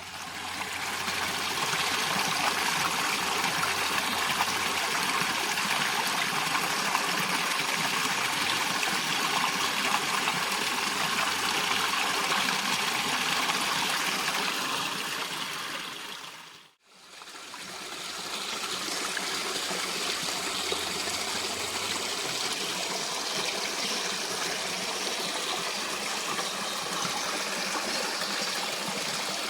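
Steady rushing of a flowing stream. About 17 seconds in it fades briefly to silence and then fades back in.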